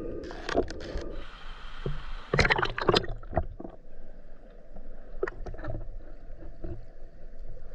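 Water sloshing and splashing in irregular bursts, with a few sharp knocks, loudest around the middle.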